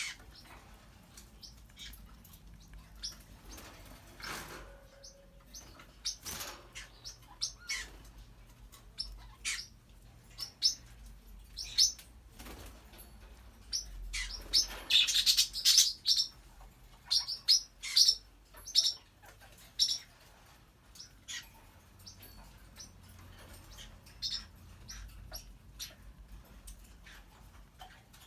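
African grey parrot making a string of short, high chirps and clicks, with a louder, harsher burst about halfway through.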